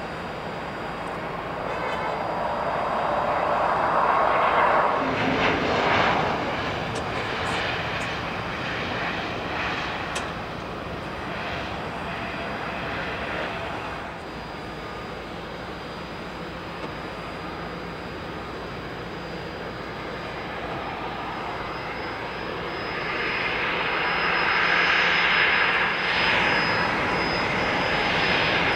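Business jet engines running: a broad rush of a landing jet rolling out, loudest about five seconds in and then fading, followed by a twin-engine business jet taxiing toward the listener, its turbine whine rising near the end with a thin steady high whistle.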